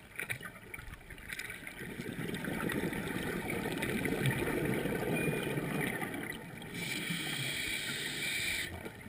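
Scuba breathing through a regulator underwater: a long bubbling exhalation through the middle, then a hissing inhalation near the end.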